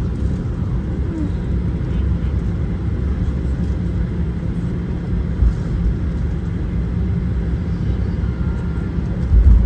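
Boeing 737-800 cabin on the ground with the engines idling: a steady low rumble, with brief low thumps about five and a half seconds in and again near the end.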